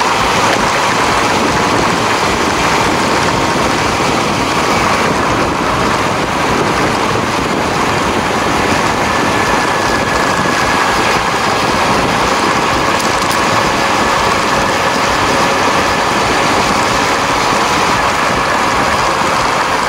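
Honda CB400 Super Four's inline-four engine running at a steady cruise, its pitch holding nearly constant, under heavy wind rush on the microphone.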